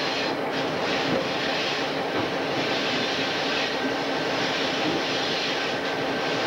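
Diesel locomotive running steadily as it rolls along, heard from its outside walkway: a constant engine hum under an even rushing noise.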